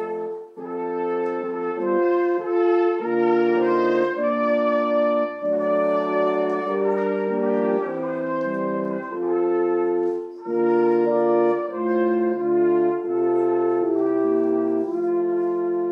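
Two trumpets playing a tune in harmony over electronic keyboard accompaniment, holding a long chord near the end.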